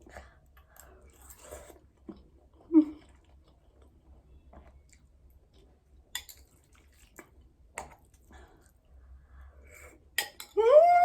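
A person eating spicy instant noodles: faint chewing with small clicks and taps of cutlery or dishes. About half a second before the end, a loud, drawn-out vocal cry starts, rising then falling in pitch.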